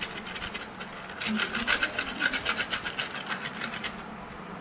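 Plastic spice packet crinkling and rustling as it is shaken and squeezed to empty masala powder into a bowl. It is a quick run of short rustles from about a second in to near the end.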